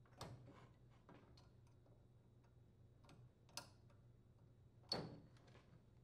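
A few faint clicks and small handling noises as the locking wire terminals are pressed and pulled off the magnetron tube's terminals; the two strongest clicks come in the second half.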